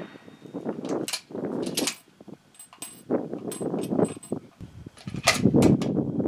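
Metallic clicks and clacks of a Savage 10FP-LE bolt-action rifle being handled between shots, with rustling in between. The loudest clatter comes about five seconds in.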